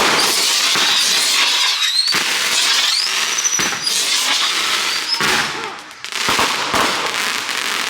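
Consumer fireworks going off at close range: loud, continuous crackling and popping with sharp bangs, and whistling shells gliding up in pitch around two and three seconds in.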